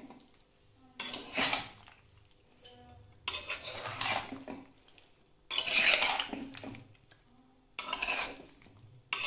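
Metal spoon scraping and clattering against a kadai as oily jackfruit and mango pickle pieces are tossed and mixed, in bursts about every two seconds.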